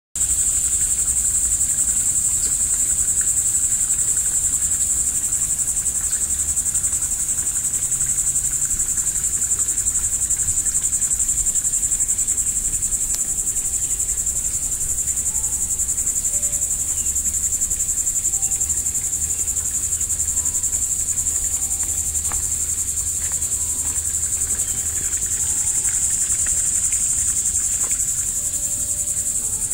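Steady, high-pitched drone of insects singing in chorus.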